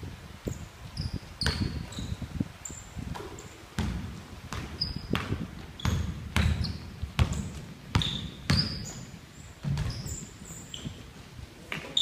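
Basketball dribbled and bouncing on a hardwood gym floor, with thuds about once a second, mixed with short high-pitched squeaks of sneakers on the floor.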